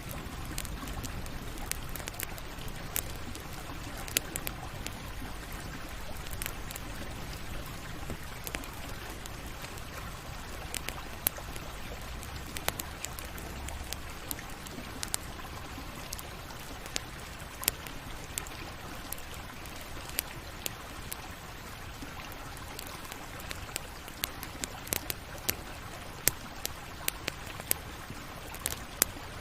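Campfire burning with a steady hiss and low rumble, broken by irregular sharp crackles and pops of burning wood, which come more often near the end.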